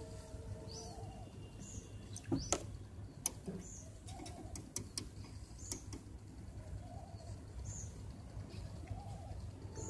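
Birds calling: a short high chirp about once a second and a lower call every second or two, over a low steady hum. A few sharp clicks come in the middle.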